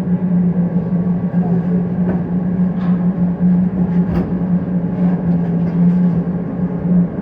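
Steady, loud hum of welding-shop machinery, with a few faint clicks about two, three and four seconds in.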